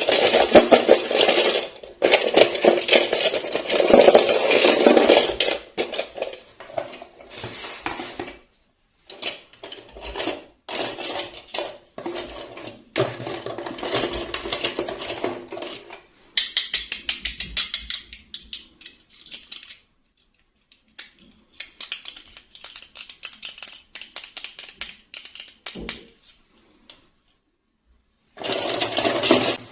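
Plastic toy packaging and doll pieces being handled: rustling and clicking in irregular bursts, heaviest in the first few seconds, with short pauses.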